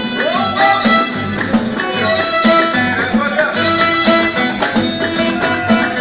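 Moroccan chaabi band playing live: a sliding lead melody on strings over a steady beat of hand frame drums and a drum kit.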